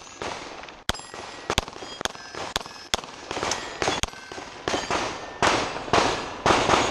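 A pistol fired in a quick, uneven string of about a dozen shots, each bullet hitting a steel target that clangs and rings afterwards.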